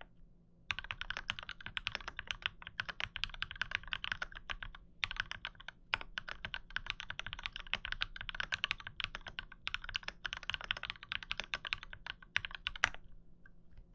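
Rapid typing on a KMG tenkeyless mechanical keyboard with an aluminium plate and linear switches (MX Black housings fitted with Kailh Red stems). The keystrokes come in fast runs broken by brief pauses and stop about a second before the end.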